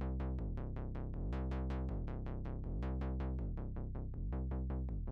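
Background electronic music: low held notes under a steady ticking beat of about five a second.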